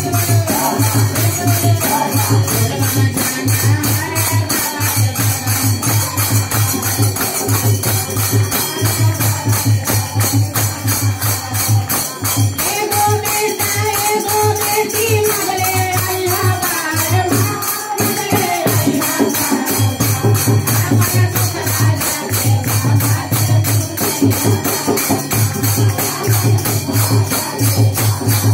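Devotional kirtan music: small brass hand cymbals (manjira) clashing in a fast, even rhythm over a pulsing low beat, with a man singing a Shiv bhajan through a microphone and hands clapping along.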